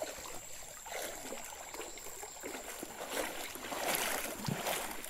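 Shallow creek water sloshing and splashing in irregular bursts, getting louder in the last couple of seconds.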